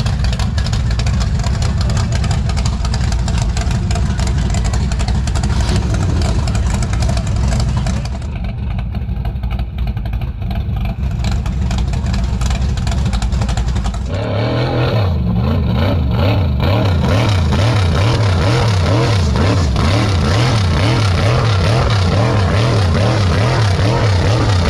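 Large truck engine revving hard under load, with a dense rushing noise over it; about two-thirds of the way through the sound changes abruptly and the engine pitch rises and falls over and over, about twice a second.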